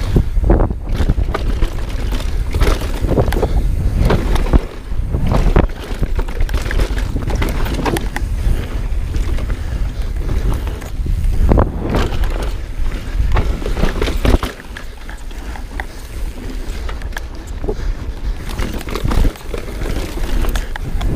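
Mountain bike descending at speed: tyres rolling and skidding over rock and packed dirt, with frequent knocks and rattles as the bike hits bumps, under steady wind buffeting on the microphone. The rush eases a little for a couple of seconds about two-thirds of the way through.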